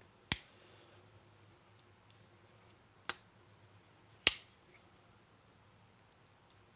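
Spyderco Dragonfly folding knife, purple G10 handle with added pivot washers, being worked open and shut: three sharp clicks of the blade locking and snapping home, with no gritty sound of steel rubbing on the G10 in between.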